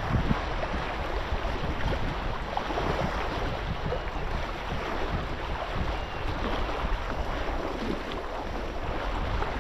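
Wind buffeting the microphone with a low rumble, over a steady wash of waves.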